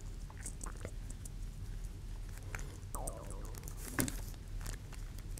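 Faint small clicks and scratches of a breadboard binding post being handled while its nut is unscrewed by hand, with a sharper click about four seconds in.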